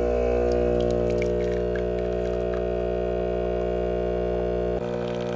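Espresso machine pump humming steadily while a shot runs through a bottomless portafilter, weakening about five seconds in.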